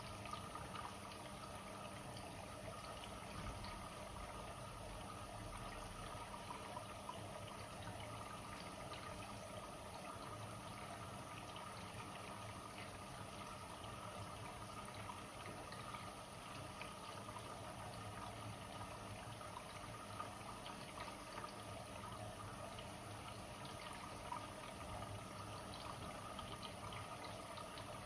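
Blomberg WA391 washing machine mid-cycle, with a faint, steady sound of water moving in the machine.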